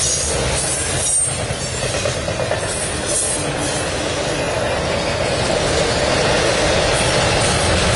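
Norfolk Southern double-stack intermodal train passing close at track speed: a steady rumble and rattle of steel wheels on rail and the container cars going by.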